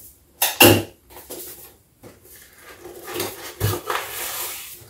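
White cardboard product box being handled and opened by hand: a sharp knock about half a second in, then the scrape and rustle of the cardboard flap and inner packaging, with another knock near the end.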